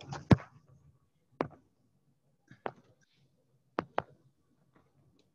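A handful of sharp, isolated clicks and knocks, about five, spread irregularly with near silence between them; the loudest comes just after the start and two fall close together about four seconds in.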